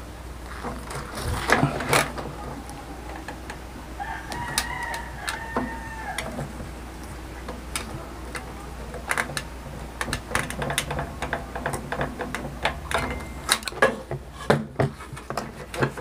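Scattered clicks and knocks of gloved hands pulling the spade connectors off a microwave oven's high-voltage transformer, loudest near the start and near the end. A rooster crows once, about four seconds in, for about two seconds.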